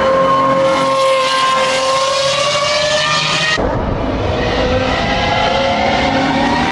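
Racing hypercar engine at high revs on track, a steady high-pitched note climbing slightly under acceleration. About halfway through it cuts abruptly to another engine with a deeper, rougher sound whose pitch rises again.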